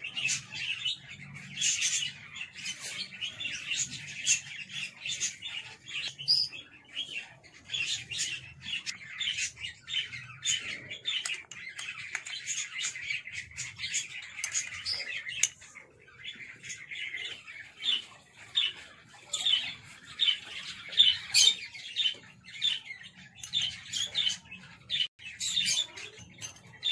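Many small birds chirping and twittering continuously in a dense, overlapping chorus of short calls.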